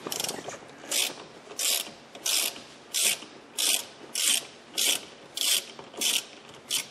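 Hand ratchet with a T45 Torx socket clicking in a quick rasp on each back stroke, about one and a half strokes a second, as it turns out a steering wheel retaining bolt that is not in very tight.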